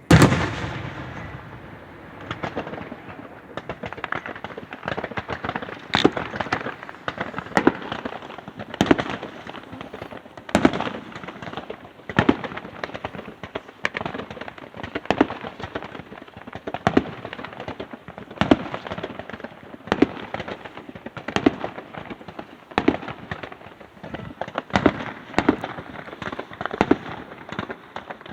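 Aerial fireworks bursting: a loud boom right at the start that rings on for a second or two, then a steady barrage of sharp bangs, a couple a second and some in quick clusters.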